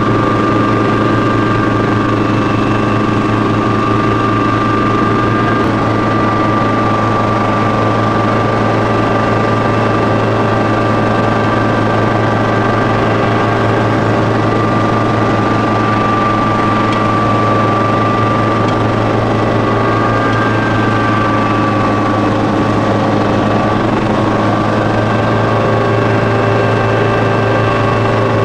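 Heavy diesel earthmoving machinery running steadily under load, with a constant engine drone and a steady higher whine over it that shifts slightly in pitch about two-thirds of the way through.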